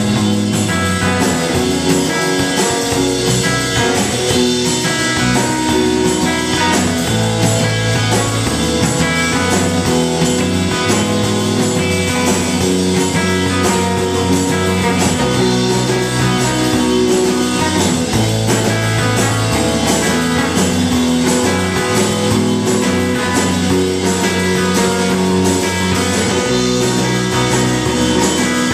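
Live rock band playing loudly and steadily on electric guitar, amplified electric bass and drum kit.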